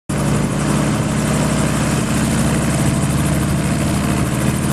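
Enstrom F-28C helicopter running on the ground with its rotors turning: the turbocharged Lycoming four-cylinder piston engine and rotor give a steady, even drone. It starts abruptly at the very beginning.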